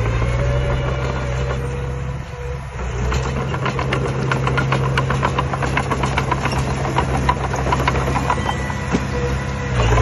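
Diesel engines of a small bulldozer and a dump truck running steadily as the truck reverses, dipping briefly about two seconds in; from about three seconds in a rapid, uneven clatter of knocks rides over the engine noise.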